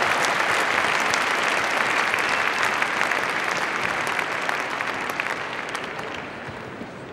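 Large arena crowd applauding, the clapping slowly dying away toward the end.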